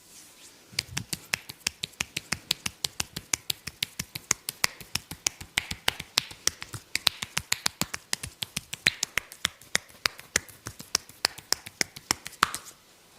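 Percussive massage strokes: hands striking rapidly and evenly, giving sharp slapping clicks at about five a second. They start about a second in and stop just before the end.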